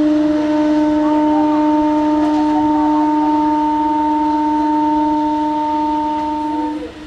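Electric locomotive's air horn sounding one long, loud, steady blast on a single note, which cuts off sharply near the end.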